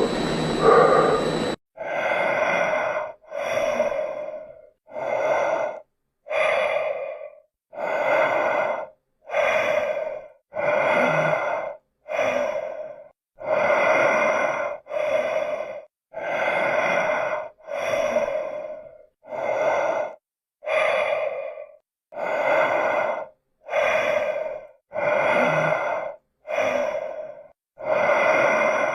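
Michael Myers breathing sound effect: slow breaths in and out through a mask, repeating evenly about once a second with short silences between. A different, denser sound cuts off abruptly about a second and a half in.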